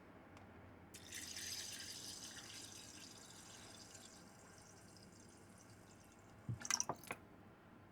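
Water pouring or running briefly, starting about a second in and trailing off over a few seconds, followed near the end by a quick clatter of three or four sharp knocks.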